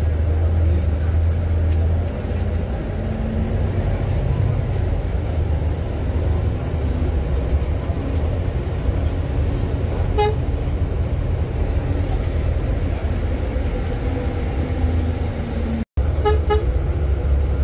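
Scania K410EB coach on the move, its engine and road noise a steady low rumble; a vehicle horn gives a short toot about ten seconds in and a few quick toots near the end.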